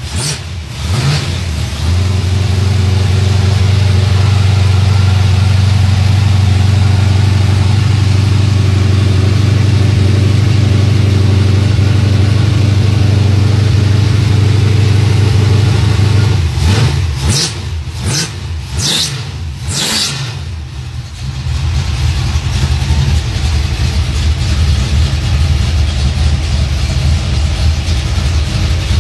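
1969 Camaro's carbureted V8 running steadily at a fast idle. About two-thirds of the way through it dips, with a few short noisy clatters, then settles back to a slightly quieter idle.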